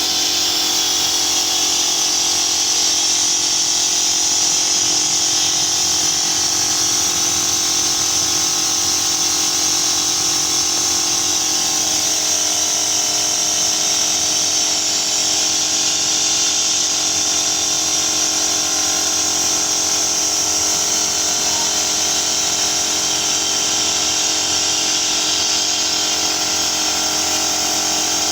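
Car engine running at a steady speed with a strong hiss over a steady hum, during an engine decarbonising treatment with cleaning fluid.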